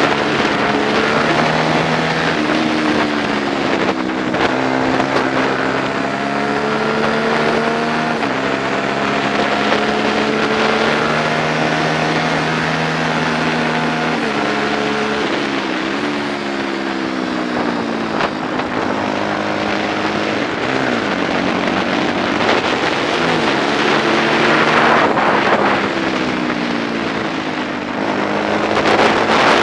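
Single-cylinder 125 cc four-stroke race motorcycle engine heard from an onboard camera, revving up and dropping back through the gears as it laps the track, with wind rushing over the microphone that grows louder near the end.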